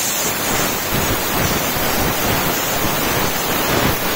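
Loud, steady hiss of dry steam jetting from the hand-operated steam gun of an Optima Steamer XD diesel steam cleaner, running at about 125 PSI and 330 degrees.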